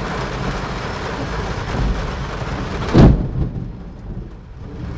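Heavy rain hissing on the car, then about three seconds in a sudden loud crack of thunder from a lightning strike about 300 m away, dying away in a low rumble.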